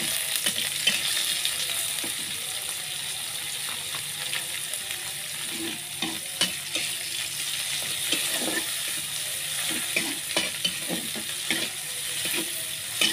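Dried anchovies (teri) frying in hot oil with garlic and shallots, a steady sizzle, while a spatula stirs and scrapes the pan with scattered clicks and knocks.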